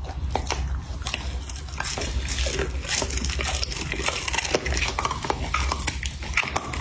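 Golden retriever chewing and gnawing a cooked lamb bone held out by hand: a dense, irregular run of wet crunches and sharp clicks of teeth on meat and bone.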